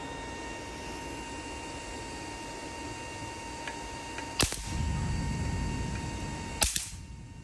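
Adjustable battery charger under test: a steady high whine, broken by a sharp snap a little over halfway through and a low rumble for about two seconds. A double snap comes near the end, and the whine stops after it.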